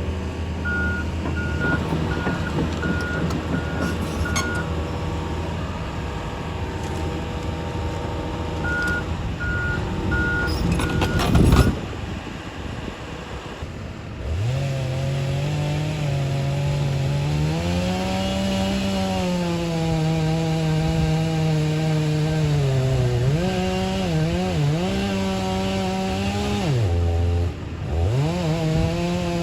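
Heavy equipment engine running steadily with a reversing alarm beeping about twice a second, broken by a single loud crash about eleven seconds in. From about fourteen seconds a chainsaw starts and runs, its revs rising and falling as it cuts, with a brief drop near the end.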